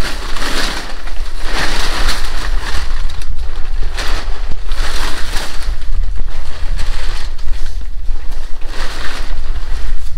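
Plastic tarp rustling and crinkling in several bursts as it is pulled and spread over a boat, over steady wind rumble on the microphone.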